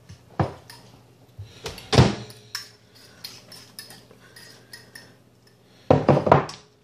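A spoon knocking, clinking and scraping against a bowl as a noodle, soup and corn mixture is stirred together. The knocks are scattered, the loudest about two seconds in, with a quick cluster of clatters near the end.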